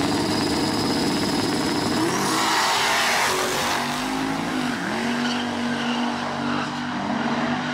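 Turbocharged drag-car engines idling and revving, with a rush of tire squeal about two seconds in; the engine note dips and then settles again about five seconds in.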